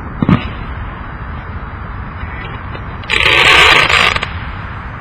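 Fireworks cake going off: a sharp bang just after the start, then about a second of loud, dense crackling hiss about three seconds in.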